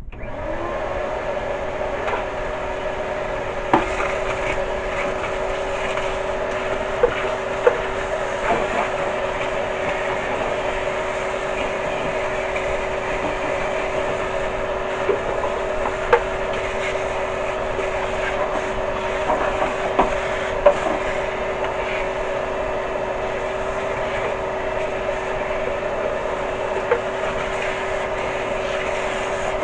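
A handheld power tool's motor running at a steady speed with an even whine. Scattered sharp ticks and clicks sound over it, typical of the tool working on metal.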